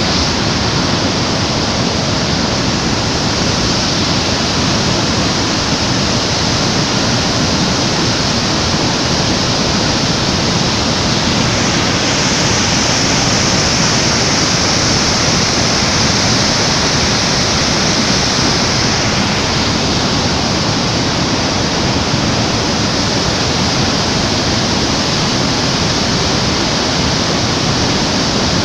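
The steady, loud rush of water falling at Iguazu Falls, a dense unbroken roar with no let-up, swelling slightly about halfway through.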